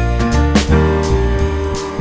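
Background instrumental music with a steady beat, with piano and guitar.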